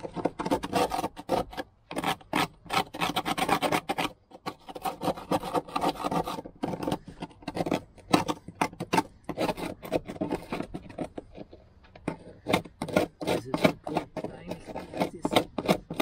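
A pointed metal tool scraping crusted dirt and rust off a 2003 Toyota Land Cruiser 120's bare sheet-steel floor pan, in quick rough strokes with a few short pauses.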